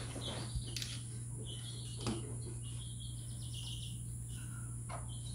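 A few soft knocks and handling noises from a traction drive belt being worked onto the pulleys under a John Deere Z920M zero-turn mower, over a steady low hum, with faint chirping in the background.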